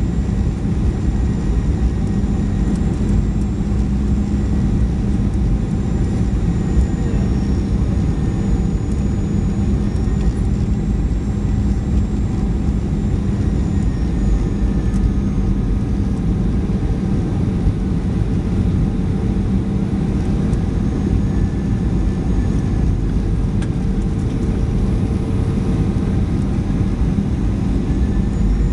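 Jet airliner cabin noise during the descent to landing: a loud, steady rumble of the turbofan engines and rushing air, heard inside the cabin from a window seat beside the wing-mounted engine, with a steady low hum underneath.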